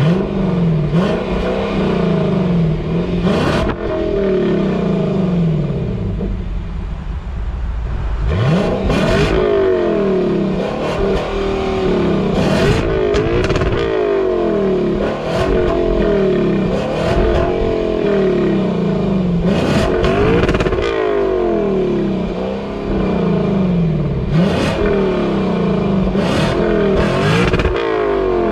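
The Lexus LC500's 5.0-litre naturally aspirated V8 is being revved over and over while the car stands still. Each rev climbs sharply and falls back toward idle. The first several seconds hold lighter blips, then harder revs come about every one and a half seconds.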